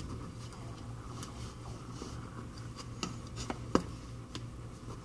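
Light clicks and taps from handling small phone parts and tools during the repair, a few scattered, the sharpest one close to four seconds in, over a steady electrical hum.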